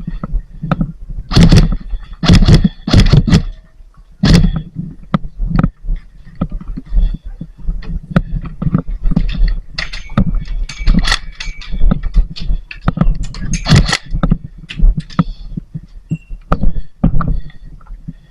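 Airsoft play: irregular sharp clicks and knocks of airsoft guns firing and BBs striking, loudest in a cluster about one and a half to three and a half seconds in and again near fourteen seconds, over a steady low rumble of movement and gear handling.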